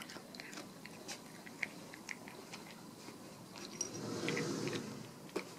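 A cat eating from a shallow dish: a run of small clicks of chewing and licking, with a louder scuffling noise about four seconds in.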